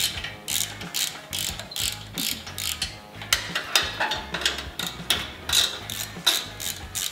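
Hand socket ratchet clicking in quick back-and-forth strokes, loosening the exhaust flange mounting bolts.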